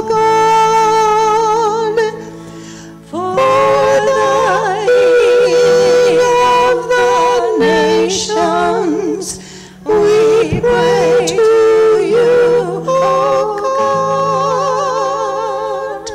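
A woman's voice singing a slow, sustained chant refrain with vibrato over low held notes, in several long phrases with short breaths between them.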